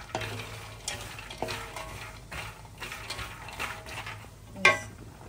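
Wooden spatula stirring almonds and pistachios in ghee in a metal pan, the nuts scraping and clicking against the pan with a light sizzle. A single sharp knock near the end.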